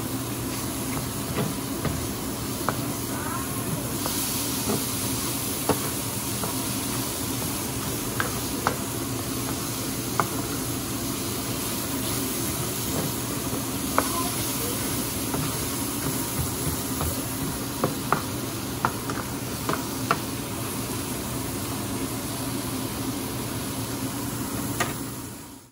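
Mushrooms sizzling in a hot metal griddle pan while a spatula scrapes and taps against the pan, with sharp clicks every second or so over a low steady hum. The sound stops abruptly near the end.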